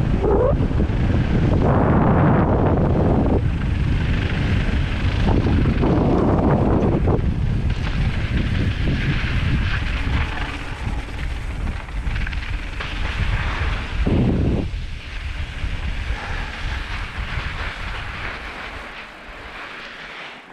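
Wind buffeting the microphone of a helmet camera on a fast mountain-bike descent, over the hiss and crunch of tyres on loose, dusty dirt. It swells louder a few times and eases off over the last few seconds.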